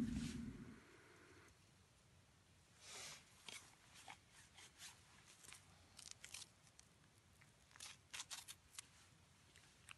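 Faint crinkling, rustling and small clicks from gloved hands handling a packet and a plastic cup beside a camping pot, in several short bursts. A low rumble fades out in the first second.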